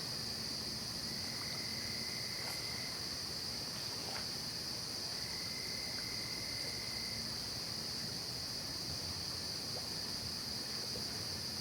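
Late-summer night chorus of crickets and other insects: a steady high-pitched drone, with a lower trill that comes in twice for a second or two.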